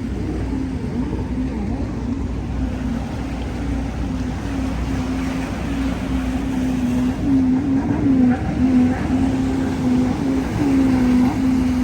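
A steady engine drone over a low rumble, its pitch wavering slightly, growing somewhat louder in the second half.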